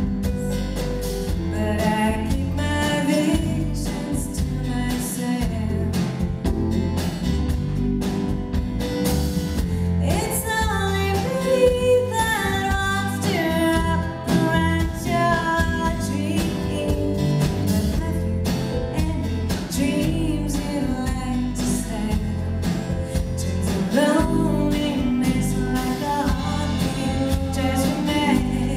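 Live band playing a song with a woman singing lead over drums and acoustic guitar, heard from the audience in a theatre.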